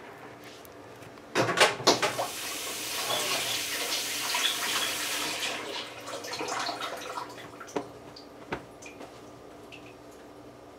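Water running from a tap into a sink for about three to four seconds, starting just after a few knocks and then tailing off, followed by two sharp clicks.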